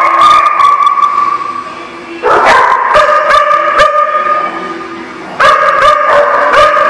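Dogs in rough play, giving short sharp barks and yips at intervals.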